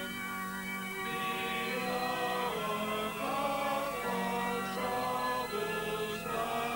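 A group of voices singing a slow hymn in long held notes that change every second or so.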